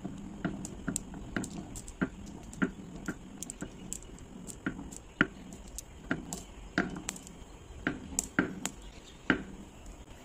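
Glass marbles released one at a time roll down a serpentine groove and click sharply into a growing line of marbles held back by a block. The clicks come irregularly, about two a second, each with a brief ring.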